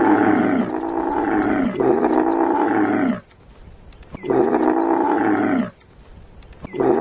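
Camel grunting: long, loud groaning calls that fall in pitch, repeated with short pauses about three and six seconds in.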